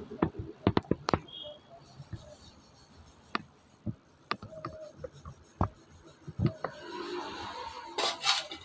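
Irregular sharp clicks and knocks of hand tools and metal parts being handled on a motorcycle front disc brake caliper as its nuts are undone. A cluster comes in the first second or so, then scattered single clicks, and a brief rustle near the end.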